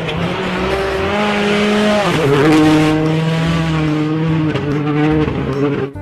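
Rally car engine running hard at high revs. Its note dips about two seconds in, then holds steady, over the hiss of tyres on loose gravel. The sound cuts off abruptly at the end.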